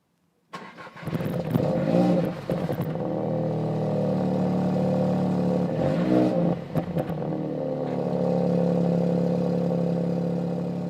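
Car engine running, revved up and back down twice, then fading out.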